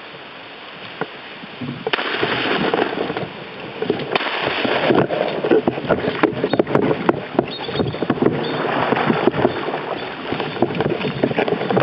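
Water rushing and splashing against a canoe moving down a river, with small knocks and clatters, louder from about two seconds in.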